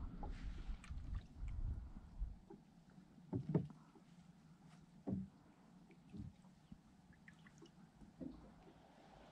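Water lapping against the hull of a small boat, with a few soft knocks at irregular intervals and a low rumble in the first couple of seconds.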